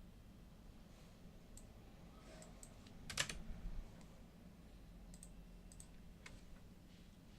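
Computer keyboard keys and mouse buttons clicking now and then, with a louder cluster of key presses about three seconds in, over a faint low hum.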